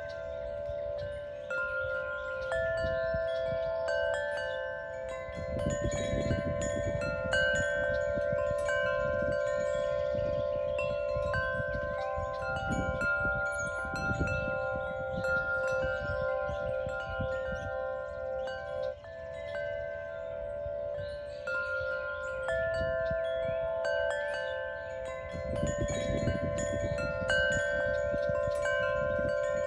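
Wind chimes ringing: many pitched notes struck at random moments, each ringing on and overlapping the next. A low rumble rises and falls beneath them, strongest about a fifth of the way in and again near the end.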